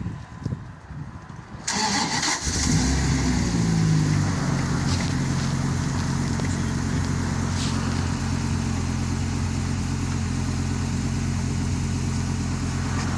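Dodge Ram SRT-10's 8.3-litre V10 cranked and starting a little under two seconds in, flaring up in revs as it catches, then settling into a steady idle.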